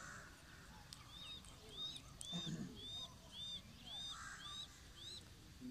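A bird calling: a run of short, high, arched chirps, about two a second, with harsher, lower calls at the start and again around four seconds in.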